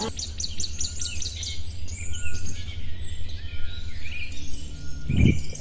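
Wild birds chirping outdoors over a steady low rumble, opening with a rapid, evenly spaced run of chirps and then scattered calls. A brief low thud comes near the end.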